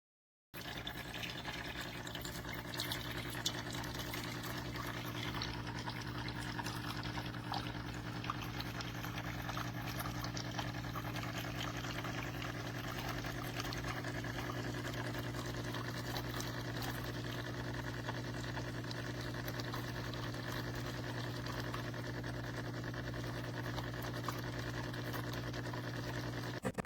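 Espresso machine's pump running steadily with a hum and a fast low pulsing, with liquid pouring, as when pulling a shot. It starts abruptly about half a second in and cuts off near the end.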